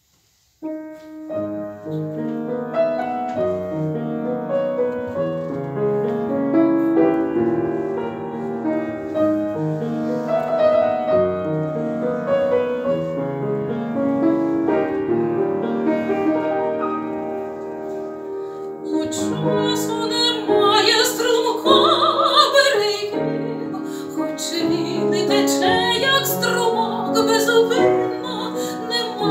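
Upright piano playing the introduction of a romance, starting about a second in; after about twenty seconds a woman's classical voice enters, singing over the piano accompaniment with a wavering vibrato.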